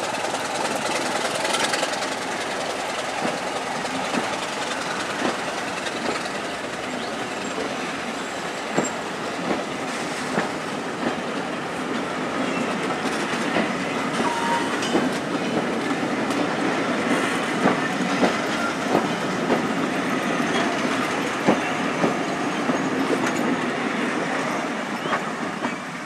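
Rake of passenger coaches rolling past close by: a steady rumble of wheels on rails, with clicks and knocks as the wheels cross rail joints. The sound falls away near the end as the last coach goes by.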